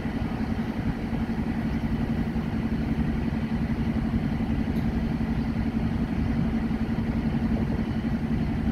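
Diesel engine of a standing passenger train idling: a steady drone with a constant low hum.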